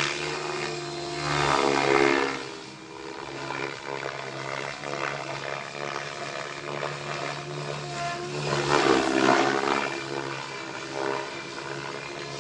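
Radio-controlled model aircraft flying over, its motor whining and sliding up and down in pitch as it manoeuvres. It swells louder about two seconds in and again about nine seconds in, as it passes closest.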